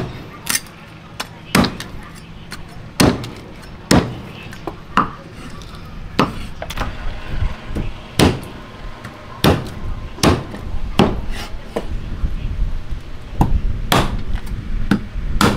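A heavy cleaver chopping goat leg meat and bone on a chopping block: sharp, loud chops at an uneven pace, about one a second, with a short pause in the second half.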